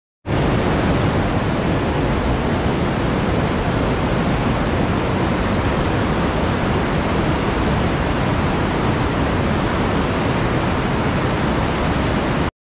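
Mountain river rapids rushing over boulders, a steady, even roar of white water that cuts in sharply and cuts off sharply near the end.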